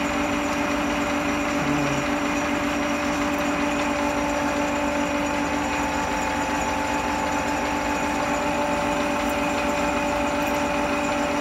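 An old Holbrook metal lathe running at a steady pitch, with a constant hum, while its tool takes a turning cut along a cold-rolled steel shaft.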